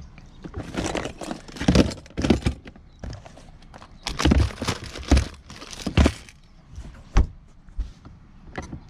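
Hard plastic tackle boxes and bagged gear clattering and rustling as they are shifted around inside a boat's deck storage locker, in a string of irregular knocks. Near the end a sharp thunk as the locker lid shuts, then a small click as its metal flush latch is turned.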